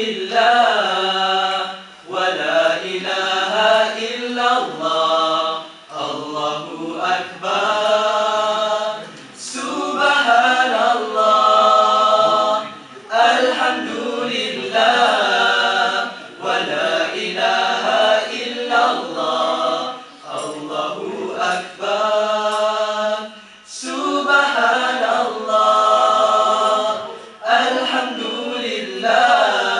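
Small group of young men singing a nasheed a cappella, several voices in harmony, in phrases of a few seconds with short breaks for breath between them.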